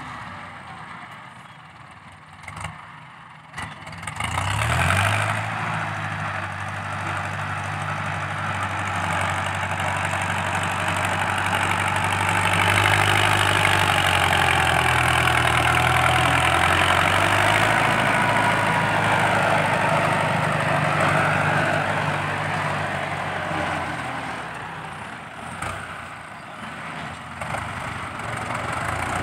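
Ford 6640 tractor's diesel engine working hard while pushing soil with its front blade, with a loud exhaust note. It revs up about four seconds in, stays loud through the middle, and eases off briefly near the end before picking up again.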